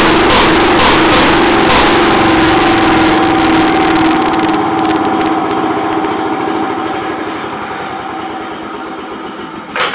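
A 1920s or early-1930s Jacobsen two-stroke engine running steadily on its stand. Its sound grows gradually quieter over the second half. A quick clatter of sharp knocks starts right at the very end.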